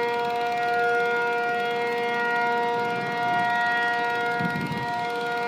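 Air-raid siren sounding one steady, unwavering tone.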